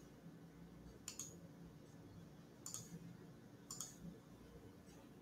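A few faint computer mouse clicks, some in quick pairs, over quiet room tone.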